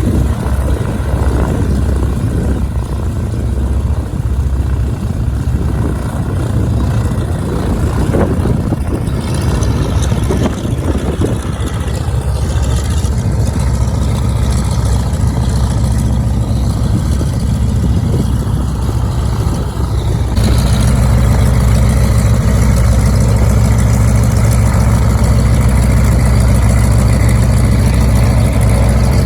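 Twin radial engines of a Beechcraft JRB-6 running at low power, then growing louder and steadier about twenty seconds in as the power is brought up.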